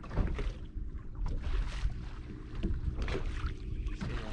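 Wind buffeting the microphone and choppy water lapping against the hull of a bass boat: a steady low rumble with a few irregular hissing surges.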